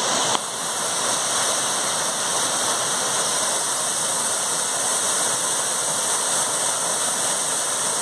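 Steady rushing of a waterfall pouring into its plunge pool.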